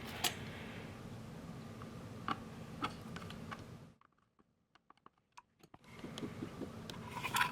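Scattered light clicks and taps of a screwdriver and metal blade being handled while the blade screws on a soap shaver are tightened. The sound drops to almost nothing for about two seconds midway, with only a few tiny clicks, then the clicking resumes.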